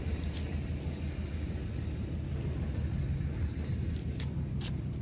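Steady low motor rumble, with a few short clicks about half a second in and twice near the end.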